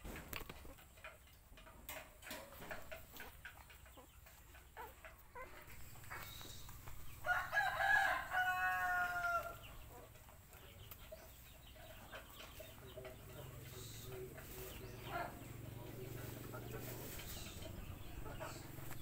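A rooster crows once, a single call of about two seconds in the middle, the loudest sound here. Before it come faint small clicks and smacks of puppies suckling at their mother.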